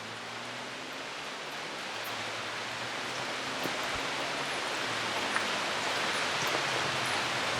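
Steady rain falling on rainforest foliage, slowly growing louder.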